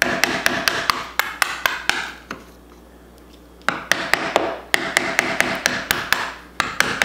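A hammer tapping a flat-blade screwdriver used as a makeshift chisel, chipping a notch into a wooden wall top. Two quick runs of sharp taps, about four a second, with a pause of about a second between them and a scraping rasp under the taps.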